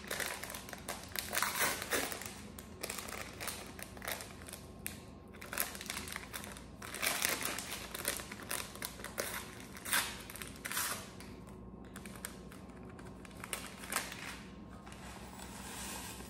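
Paper packet of Quaker instant oatmeal crinkling and rustling in irregular bursts as it is handled and opened.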